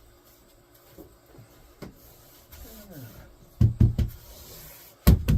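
Heavy knocks on wood: a pair of loud thuds past the middle, then a quick run of three near the end, with light clicks and rubbing before them.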